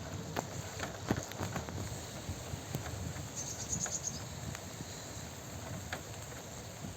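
Steady rain with close raindrops ticking irregularly over a low rumble. A bird gives a brief high trill about halfway through.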